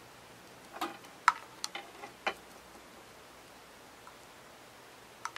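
Faint, light clicks and taps of a paintbrush working glaze out of a small glass bottle and dabbing it onto chipboard: a handful in the first two seconds or so, then a pause, then a few more near the end.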